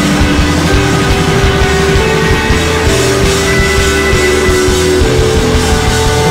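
Live rock band playing: drum kit, electric guitars and keyboards, with long held notes over a steady beat.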